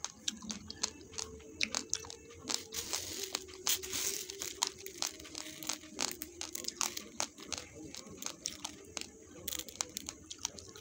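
Raw basmati rice grains being crunched between the teeth, a quick irregular run of sharp cracks. Dry grains rustle in the middle as a hand scoops rice from a steel bowl.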